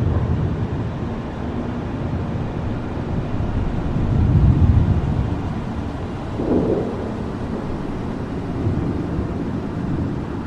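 Rain falling steadily under a deep rumble of thunder that swells about four seconds in.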